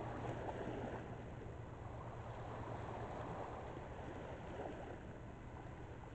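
Distant freighter's engines running as a steady low drone, under a steady rushing wash of river water.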